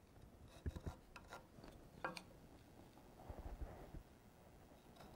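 Faint handling sounds: a few light clicks and taps of wood on wood, then a soft scratching as a pencil traces around a round dowel to mark a rounded corner on a wooden block.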